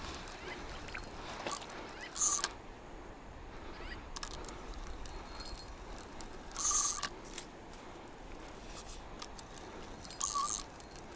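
A spinning reel's drag giving line in three short, high-pitched buzzes about four seconds apart as a hooked wild carp pulls against the bent rod, over a faint steady background hiss.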